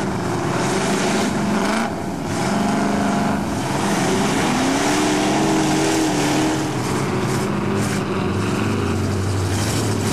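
Engines of lifted 4x4 mud trucks revving as they plough through deep mud, the pitch rising and falling with the throttle.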